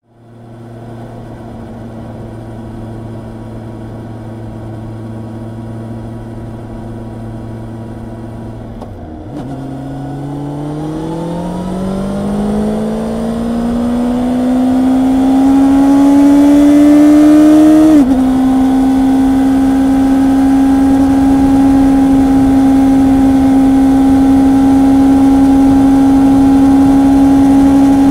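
Honda CB650R inline-four engine under way: a steady note, a brief dip about nine seconds in, then the pitch climbs smoothly as the bike accelerates through the gear. About eighteen seconds in the note drops briefly at an upshift, then holds steady at a higher pitch, louder than at the start.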